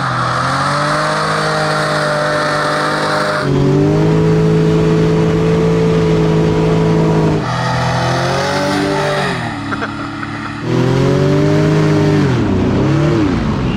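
Hovercraft engine running hard, its pitch holding steady, then jumping up and gliding down as the throttle is opened and eased. About eight seconds in it backs off, lower and quieter, before it revs up strongly again about ten and a half seconds in.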